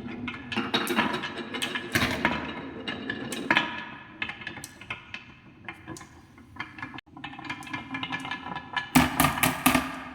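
Marbles rolling and clattering down a wooden marble run: a rolling rumble with many sharp clicks and knocks that ring briefly, and a dense flurry of clatter about nine seconds in.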